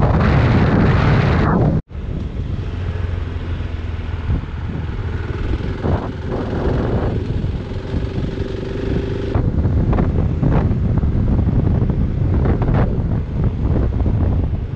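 Dual-sport motorcycle engine running while riding, heavily mixed with wind buffeting the microphone. The sound drops out for an instant about two seconds in, then carries on.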